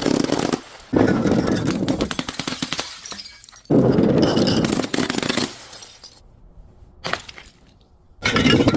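Glass bottles smashing one after another: a loud crash about a second in, another a little before the middle, and a third near the end, each followed by a crackle of breaking and settling shards.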